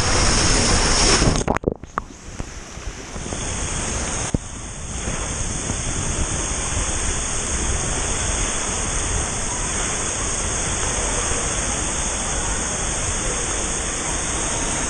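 Water rushing and splashing along a water slide as a rider slides down it, heard close on the camera. The sound briefly cuts out about one and a half seconds in, then the steady rush returns.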